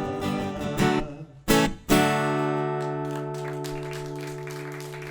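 Guitar playing the closing chords of a song: strummed chords, a short break, two sharp strums about a second and a half in, then a final chord left ringing and slowly fading.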